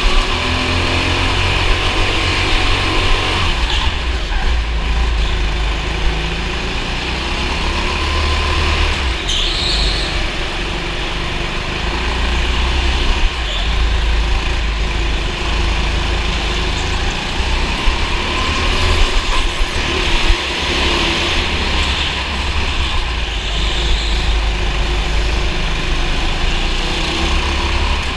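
Go-kart engine running during a race, its pitch rising and falling as it is throttled and lifted off, over a continuous low rumble and rushing noise.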